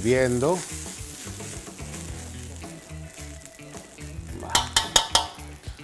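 Fried rice and vegetables sizzling in a stainless steel wok as a metal spoon stirs them, with a quick run of sharp scrapes and clinks of the spoon against the wok near the end.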